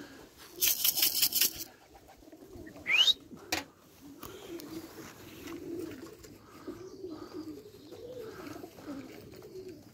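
Domestic pigeons cooing on the loft, a run of low repeated coos from about four seconds in. Before that comes a brief rapid clatter about a second in, the loudest sound, and a short rising whistle about three seconds in.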